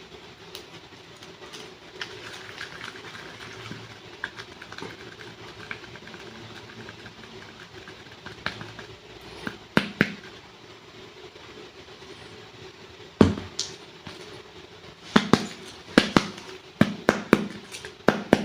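Clay packs being unwrapped and handled: sharp crackles and clicks of the packaging, a few around ten seconds in, one loud snap a few seconds later, and a quick run of clicks near the end, over a steady low hum.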